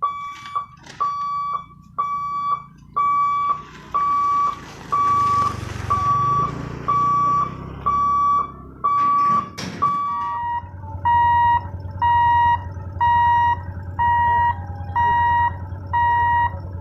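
Level-crossing warning buzzer beeping, about one beep a second, as the railway gate is closed for an approaching train; about ten seconds in the pitch drops slightly. A low steady hum runs under the beeps in the second half.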